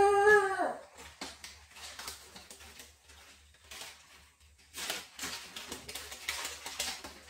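A person's wailing cry falls and trails off in the first second. Then come soft clicks and paper rustling and crinkling as the paper-bag puppet is handled, louder in a stretch past the middle.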